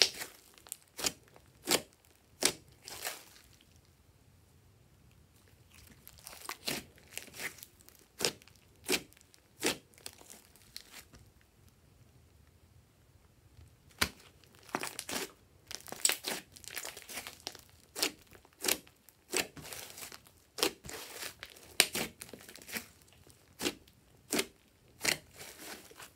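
Hands squeezing and stretching glossy slime: a run of irregular sticky pops and crackles as trapped air pockets burst, pausing twice for a few seconds.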